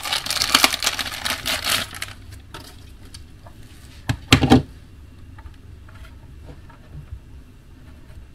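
Plastic packaging crinkling and rustling in the hands for about two seconds, a short louder rustle about four seconds in, then faint clicks of small parts being handled.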